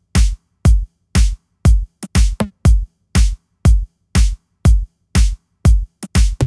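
Electronic drum-machine beat on its own: a deep, booming drum hit about twice a second with silence between hits, and a few quick extra hits slipped in twice.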